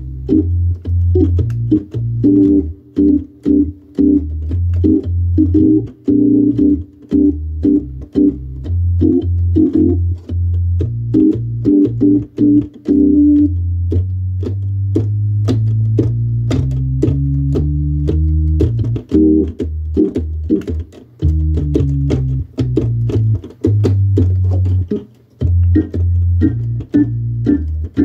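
Hammond organ playing chords over a walking low bass line, in short detached stabs with frequent brief gaps, then a longer held passage about halfway through.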